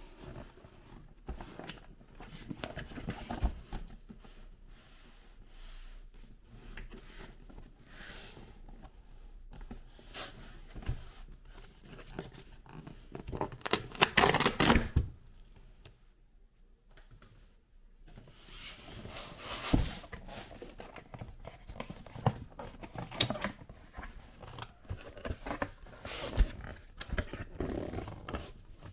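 Unboxing sounds from Mac mini packaging: cardboard and paper being scraped, slid and torn open, with scattered clicks and knocks. The loudest tearing noise comes about halfway through.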